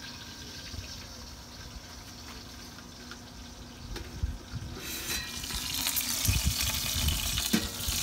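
Pork butt sizzling inside a small stainless steel Orion cooker, a steady hiss. About five seconds in, the hiss grows louder and brighter as the cooker's lid is lifted, with a few low bumps.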